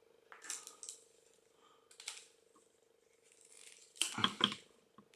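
A mobile phone being cut apart: a run of short snips and crunches of plastic and circuit board, the loudest cluster about four seconds in, over a faint steady hum.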